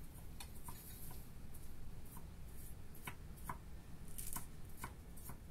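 A metal cleaver mincing diced onion on a wooden cutting board: light, uneven knocks of the blade against the board, about two a second.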